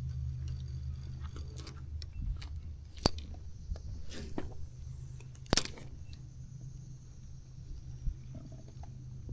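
Scattered handling clicks and knocks, two sharp ones about three and five and a half seconds in and a brief hiss between them, over a steady low rumble.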